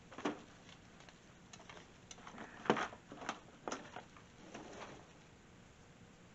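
Light clicks and knocks of small hard objects being handled and set down on a workbench: about a dozen irregular taps, the loudest near the middle, stopping about five seconds in.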